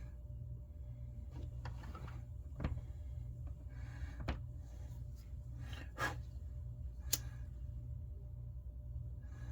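Scattered small clicks and rustles of hands working with wire and tools, over a steady low hum.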